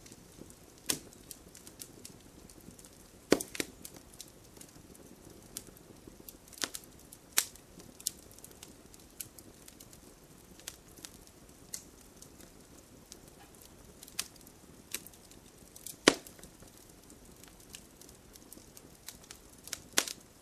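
Wood fire crackling: a soft steady hiss with scattered sharp pops and snaps, a few louder pops standing out.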